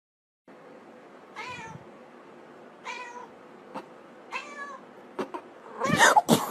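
A domestic cat meowing three times, short calls about a second and a half apart, with a few faint clicks between them. A louder, harsher burst of sound comes near the end.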